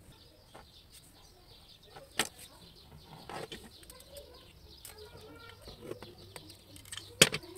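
Scattered clicks and taps of hand tools as a utility knife cuts into the end of a coaxial cable, with two sharp clicks, the louder near the end. Birds chirp faintly in the background.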